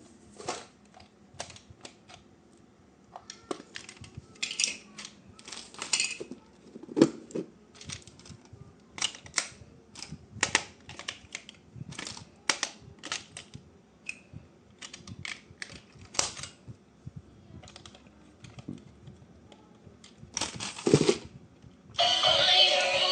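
Irregular sharp clicks and taps of hard plastic toy parts and packaging being handled, with short rustles and a couple of duller thumps. Loud music starts near the end.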